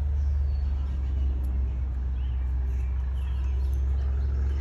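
A steady low rumble, with a few faint bird-like chirps now and then.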